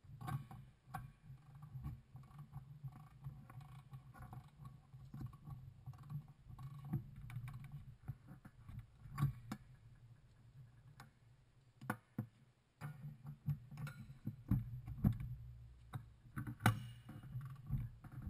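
Hand socket ratchet clicking in short strokes as bolts on an exhaust manifold and catalytic converter are turned, with scattered metal clinks and knocks of tool against part, a few of them louder.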